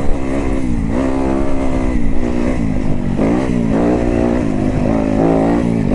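Yamaha YZ250FX four-stroke single-cylinder dirt bike engine running while being ridden, its pitch repeatedly dipping and rising with the throttle.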